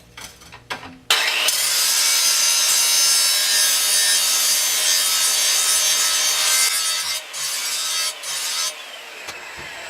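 A 7-inch grinder's abrasive wheel grinds the edge of a steel lawn mower blade. It is a loud, steady, harsh hiss that starts about a second in, drops out briefly twice near the end, then carries on a little lighter. The blade is worn round at the ends and is being ground back to a cutting edge.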